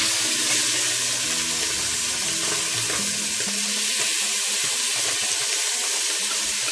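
Marinated chicken legs frying in hot oil in a cast-iron cocotte: a steady, dense sizzle.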